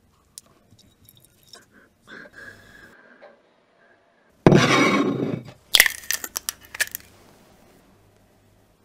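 Eggshell being cracked and an egg handled, with faint ticks and rustles at first. About four and a half seconds in comes a loud rushing sound lasting about a second, then a quick run of sharp cracking clicks.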